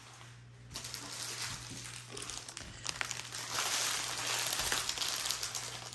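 Crinkling of the plastic wrap around a rolled bundle of diamond-painting drill bags as it is handled, getting louder about three seconds in.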